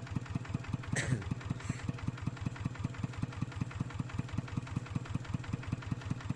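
Tractor engine running steadily with an even chugging beat of about six pulses a second, and a single sharp click about a second in.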